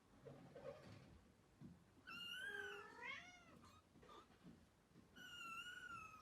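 A cat meowing faintly: two long, wavering, high calls, the first about two seconds in and the second near the end.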